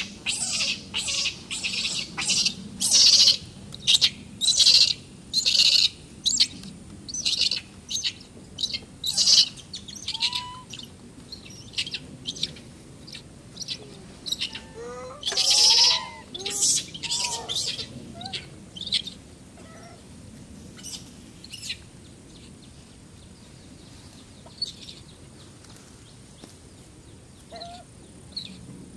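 Macaques screaming in a fight: a rapid run of short, shrill screams, with one longer, louder scream about 15 seconds in. The screams die away after about 20 seconds to a few faint calls.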